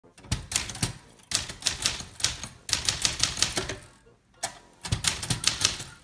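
1971 Royal Sprite manual typewriter, built by Silver Seiko, typing in quick runs of sharp key strikes, about five a second, with short pauses between the runs.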